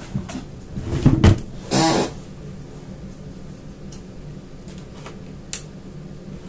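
Cardboard box being handled and cut open: a few knocks about a second in and a short scraping tear near two seconds, then a few faint clicks.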